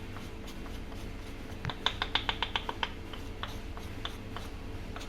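A quick run of light clicks, about eight a second for just over a second, then a few scattered ones: a spoon tapping against a vessel while cumin powder is added. A steady low hum runs underneath.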